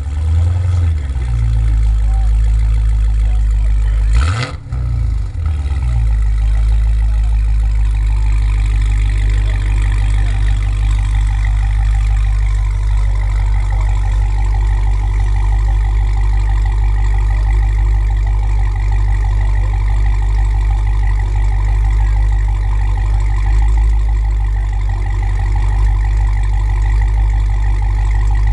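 Dodge Challenger with an aftermarket Borla exhaust running at a steady, deep idle. About four seconds in there is one brief sharp burst and a short change in pitch before the idle settles again.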